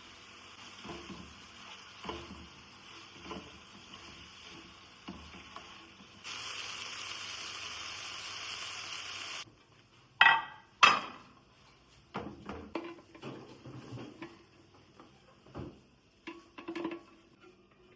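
Cooking and kitchen-utensil sounds: a steady hiss with a soft tap about once a second, then a louder hiss for about three seconds. After it come two sharp clanks of metal on cookware and a run of lighter clatter of dishes and cutlery.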